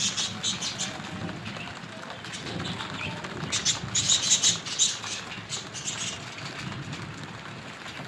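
Small birds chirping in quick bursts, twice, over a steady hiss of heavy rain.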